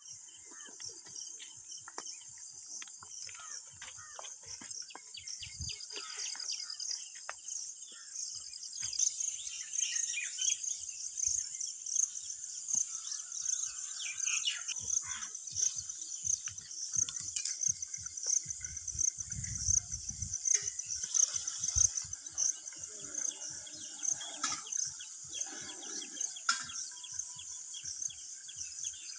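Steady, high-pitched chorus of crickets or other insects, finely pulsing, with scattered bird chirps over it in the early morning.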